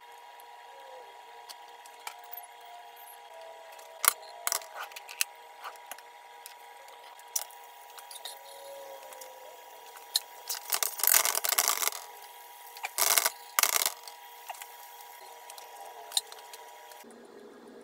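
Chopped onions being stirred in a nonstick sauté pan with a wooden spatula: a cluster of scraping and rustling about ten seconds in, then two short bursts. Scattered clicks and knocks of cookware come earlier, over a faint steady high tone.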